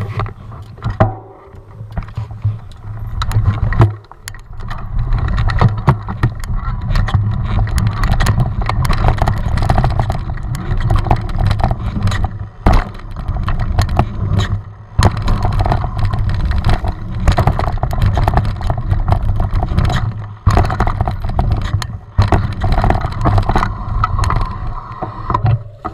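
Mountain bike riding along a dirt trail heard from a head-mounted action camera: a loud, steady low rumble of tyres and wind on the microphone, with many clicks and rattles from the bike over bumps, easing off briefly a few times.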